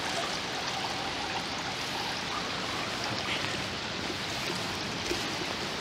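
Steady, unbroken rushing of water released from the dam, pouring down from a height.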